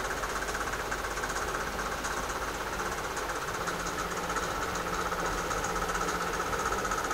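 A small machine running steadily, with a fine, fast rattle over a low hum.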